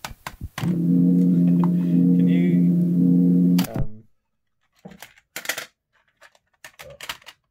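Circuit-bent cassette player giving a loud, steady drone with several overtones for about three seconds. It starts and stops with sharp clicks, and a few faint clicks follow.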